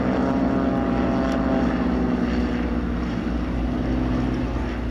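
Piston-engine propeller warbirds flying past in formation: a steady engine drone whose pitch slides slowly downward as they go by, easing off near the end.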